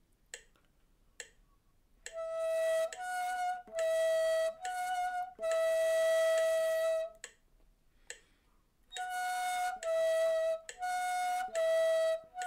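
Ney, the end-blown reed flute, playing a slow two-note practice exercise: four short notes alternating between two neighbouring pitches and a held note, a pause, then four more alternating notes into another held note. A metronome clicks the beat, alone for about the first two seconds.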